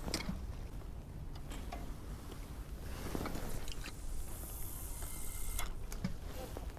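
Scattered small clicks and crunching handling sounds over a steady low rumble.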